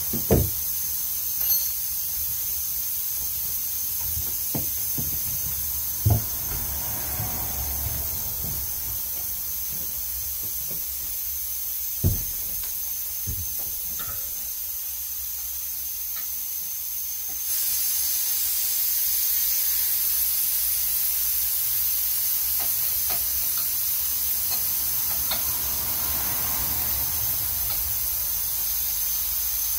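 Compressed air hissing steadily from a leak in the air line feeding the impact gun, growing louder a little over halfway through. A few sharp metal knocks come in the first half.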